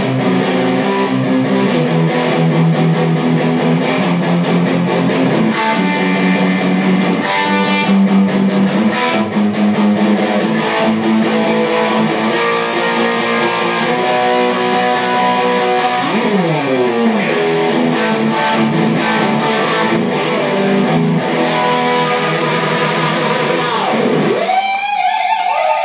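Electric guitar played loosely through a Peavey amp head and Mesa speaker cabinet, ringing chords and runs of held notes. About sixteen seconds in a note slides down, and near the end the chords drop away as a single note swoops up into a long held tone.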